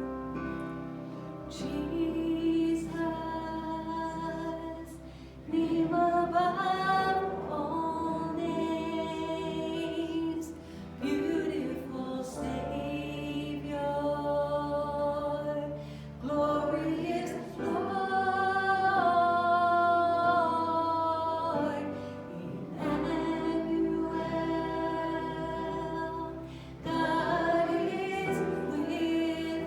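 Worship music: voices singing a slow song together over instrumental accompaniment with long held bass notes.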